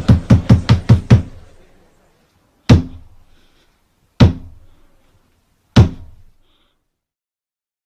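The French theatre's 'trois coups': a wooden staff (brigadier) struck on the stage floor. A quick run of knocks, about five a second, stops a little over a second in. Then three single heavy knocks follow about a second and a half apart, each ringing briefly, the signal that the play is about to begin.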